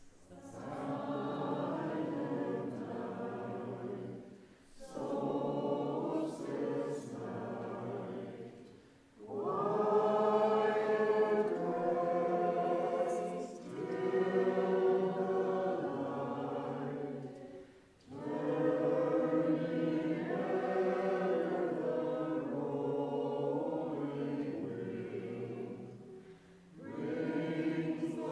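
Small mixed choir of men and women singing together in sustained phrases, each a few seconds long, separated by brief pauses for breath.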